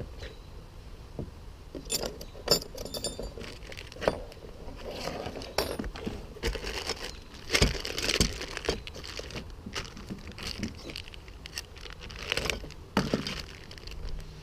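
Metal bicycle wrenches clinking and rattling against each other as they are handled, a run of clinks and light knocks from about two seconds in, loudest about halfway through.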